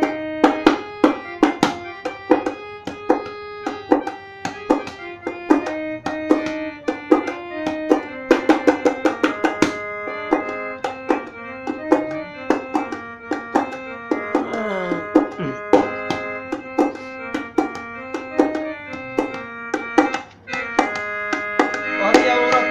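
Instrumental interlude of a Bhojpuri devotional song: a keyboard melody over a quick, steady tabla-style hand-drum rhythm.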